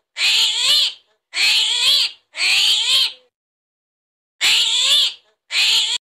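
Armadillo calls: five short, high-pitched cries, each a little under a second, with a pitch that wavers up and down. They come in quick succession, with a longer pause about halfway through.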